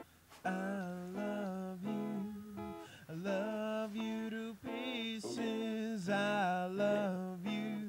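A song with strummed acoustic guitar, joined about half a second in by a voice singing long, wavering notes.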